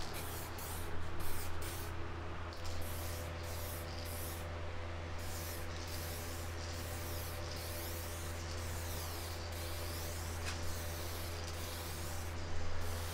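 Aerosol can of 2K black base coat hissing as it is sprayed onto motorcycle fairings in short passes, with brief breaks where the nozzle is let off. This is a light first coat. A steady low hum runs underneath.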